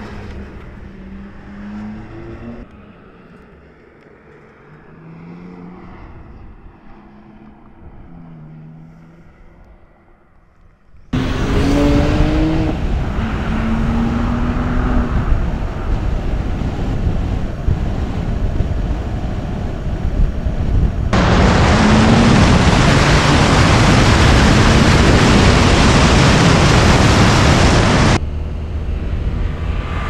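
BMW M2 Coupé's 3.0-litre twin-turbo straight-six driving on the road, its note rising and falling through the revs. About a third of the way in it jumps abruptly much louder with a rising engine note. From about two-thirds in, a loud rushing noise joins it until shortly before the end.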